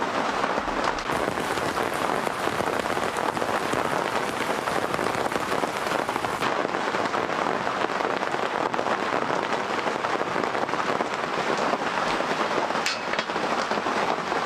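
Heavy rain falling steadily, a dense hiss of drops, with one short click near the end.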